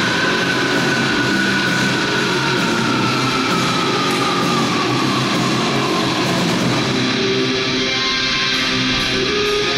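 Heavy metal entrance music with electric guitar, loud and steady, with a long guitar note sliding slowly down in pitch over the first several seconds.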